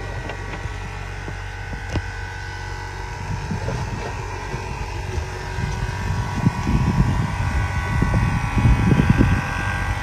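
A steady motor hum with several held tones, with gusts of wind buffeting the microphone that grow stronger in the second half.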